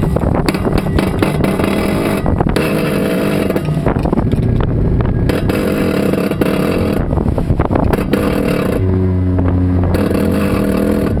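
Wind buffeting the microphone and water rushing past the hull of a sailing yacht under way, with a low mechanical hum and clicking that come and go.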